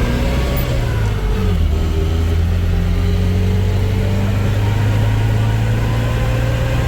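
Motor vehicle engine running steadily while driving, a low drone that shifts slightly about a second in.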